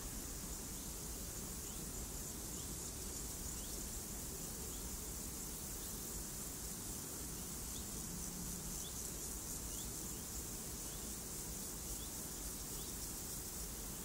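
Steady hissing rush of a waterfall, unchanging throughout, with faint short high chirps repeating about once a second.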